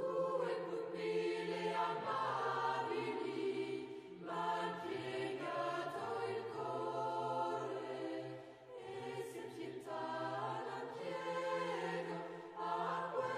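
Choir singing long held chords in phrases, with short breaks between phrases every few seconds.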